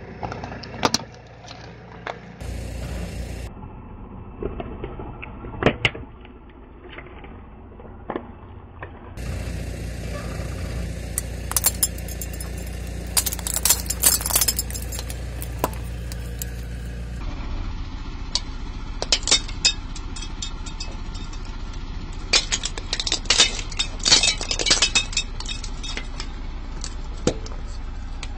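Car tyre rolling slowly over blue plastic disposable razors, crushing them with a series of sharp cracks and snaps, over the low steady running of the car's idling engine. The snapping comes in two clusters, about a third of the way in and again past the middle.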